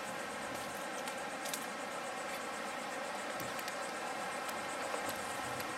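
Steady outdoor ambience: an even hiss with faint insects chirping in a quick repeating pattern, and a few light clicks.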